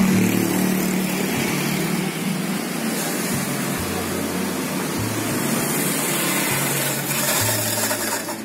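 Street traffic noise: a steady wash of passing car and motorbike engines.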